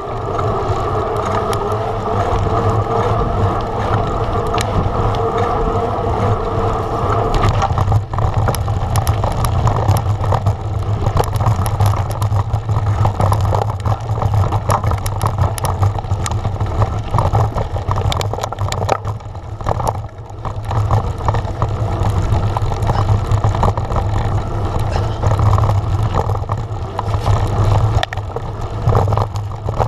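Wind rumbling on the camera microphone while riding a mountain bike, with a steady hum of knobby tyres on tarmac for about the first eight seconds. After that the tyres and bike clatter and rattle over a rough, stony dirt trail.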